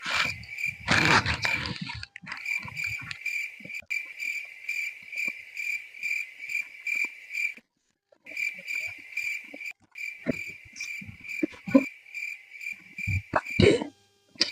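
Insects chirping in a steady, fast pulsing trill, with rustling in the first two seconds and a few short knocks near the end; the chirping cuts out briefly twice around the middle.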